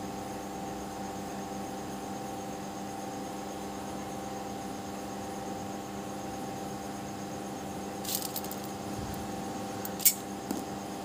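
Steady hum holding several constant tones, with a few small sharp clicks near the end, the loudest about ten seconds in, from beads and craft pieces being handled on a hard floor.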